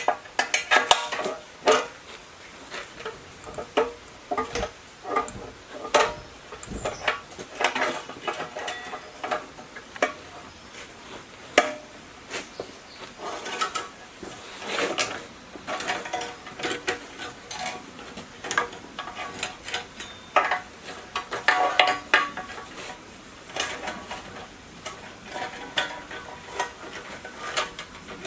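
Metal parts and tools clinking and clanking against each other, irregular knocks each with a short metallic ring.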